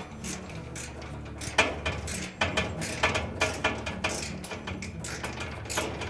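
Irregular small metallic clicks and taps of a nut driver on a 5/16-inch hex-head screw being driven in to fasten a dryer's blower cover to its base.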